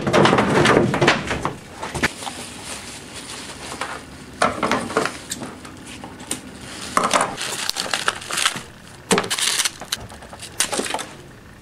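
Rustling, scraping and short knocks of a skull mold assembly being handled on a workbench: plastic sheeting and foam blocks shifted about in irregular spurts, busiest at the start.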